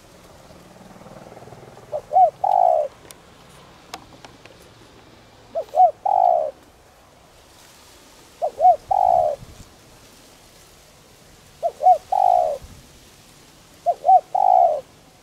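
Spotted dove cooing in the pure 'đồng' voice: five phrases about three seconds apart, each two quick short notes followed by a longer coo that falls in pitch.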